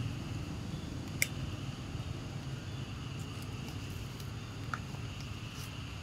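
Steady outdoor background noise, a low rumble with a faint high steady hum over it, broken by a few short sharp clicks, the clearest about a second in.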